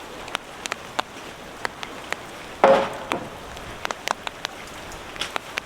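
Steady rain with many sharp, scattered drips, and one loud knock about two and a half seconds in.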